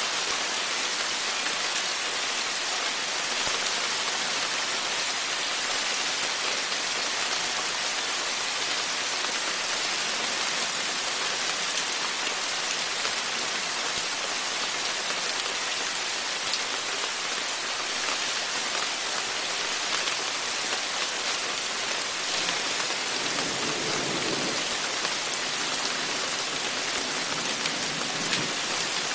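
Steady rain falling on the porch and yard, a dense even hiss of drops. A low rumble swells briefly about three-quarters of the way through.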